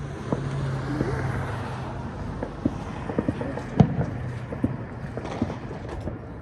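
Scattered sharp pops of fireworks and firecrackers going off in the neighbourhood, about a dozen, the loudest about four seconds in, over a steady low hum.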